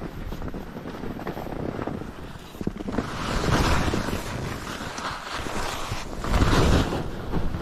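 Wind buffeting the microphone of a skier moving down steep snow, with louder swells of skis scraping and spraying snow in turns, about three seconds in and again around six seconds in.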